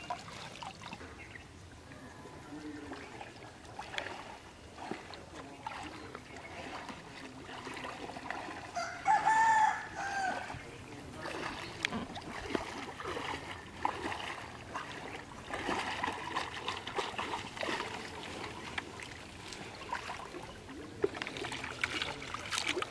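A rooster crows once, about nine seconds in, the loudest sound here. Around it, quiet splashing and trickling of shallow water as hands work through a fishing net.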